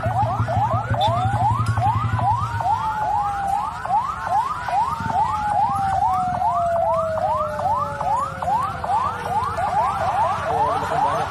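Electronic siren yelping in quick rising sweeps, about three a second, with a second long tone sliding slowly down in pitch from about two seconds in until near the end. A low hum underneath stops about three seconds in.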